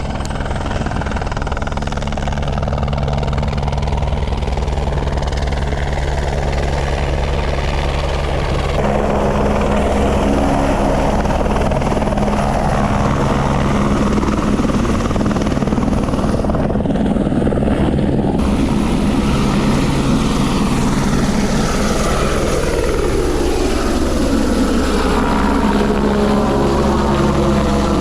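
Helicopter flying low and coming in to land close by, its rotor and engine running steadily and getting louder about a third of the way in. Near the end the pitch sweeps downward.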